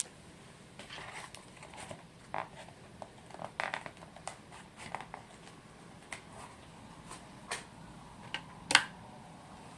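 Irregular light clicks and rustles, like small things being handled, with one sharper click near the end.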